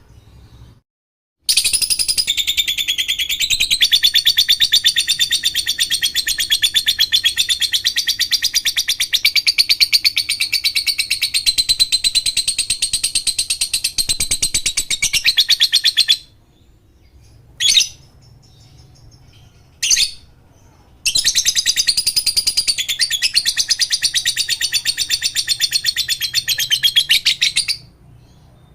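Lovebird ngekek: a long, very rapid chattering trill held for about fourteen seconds, two short chirps, then a second trill of about seven seconds.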